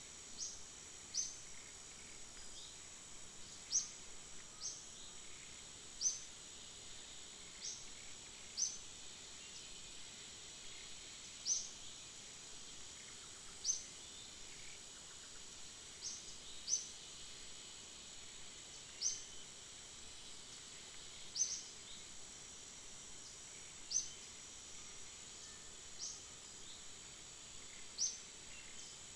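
Outdoor ambience: a bird giving short, sharp high chirps about every one to two seconds over a steady high insect drone.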